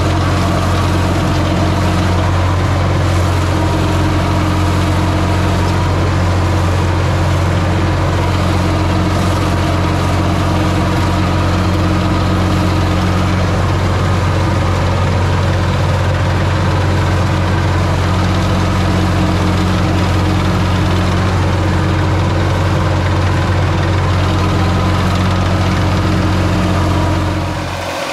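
Massey Ferguson 235 tractor engine running steadily while it powers a rear flail mulcher cutting grass, heard close up from the driver's seat. Near the end the sound cuts to a quieter, more distant engine.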